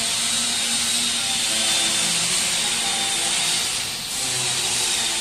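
BS-180 hammer mill with knife-type blades running steadily while grinding dry tea leaves into flakes, a steady noise with a high whine. Background music with soft held notes plays underneath.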